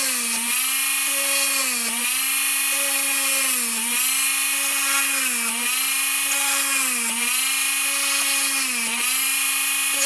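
Minicraft hand-held mini drill with a 1 mm tungsten carbide bit running with a steady high whine. Its pitch dips briefly about every second and a half as the bit bores through each hole in a circuit board.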